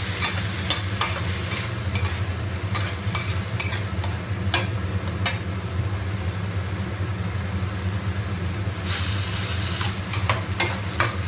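Metal spatula scraping and clicking against a wok as tomatoes and scrambled eggs sizzle in oil, with irregular strokes and fewer of them in the middle stretch. A steady low hum runs underneath.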